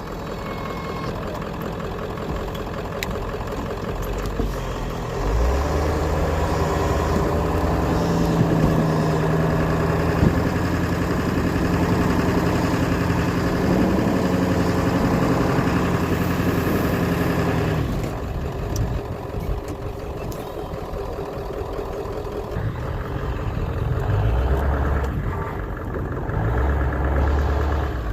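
Ford Power Stroke diesel truck engine working under load while plowing snow, rising in level about five seconds in and holding steady until about eighteen seconds, then easing off, with a second shorter rise near the end.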